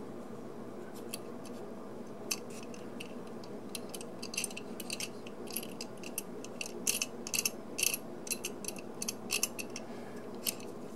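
Light clicks and ticks of a model locomotive kit's die-cast frame and plastic parts being turned over and worked in the fingers, a few at first and more frequent in the second half, over a steady low hum.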